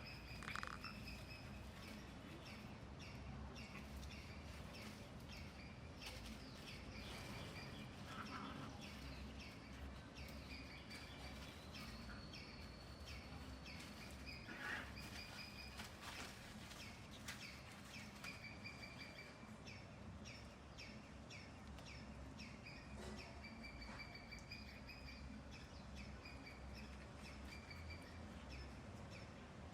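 A bird chirping short notes over and over, faint, over steady background noise.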